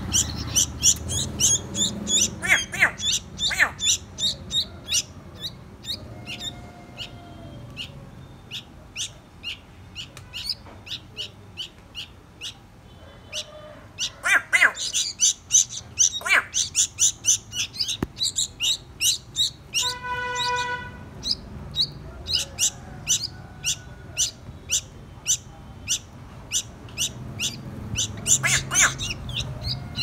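Fledgling bulbuls giving rapid, high begging chirps as they are hand-fed, in bursts that come and go. A short steady tone lasting about a second sounds about twenty seconds in.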